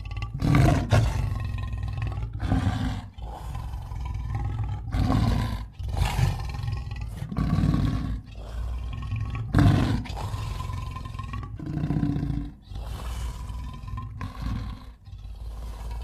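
King Caesar's kaiju roar sound effects: a run of about nine or ten roars, each a second or so long with short gaps between, over a steady low rumble.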